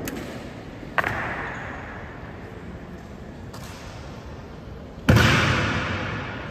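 Two sharp impacts about four seconds apart, the second louder, each ringing out in a long echo, with a fainter knock between them: honor guard drill strikes on the stone floor of a large hall.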